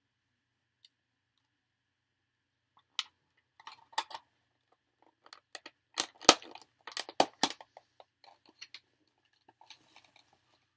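Clicks and crackles of a clear plastic clamshell takeout container and plastic fork being handled, sparse at first and loudest about six to seven and a half seconds in.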